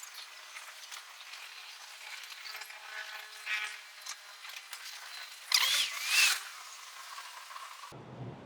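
Faint, thin city-street background noise with the low end missing, broken about five and a half seconds in by a brief high squeal that rises and falls twice.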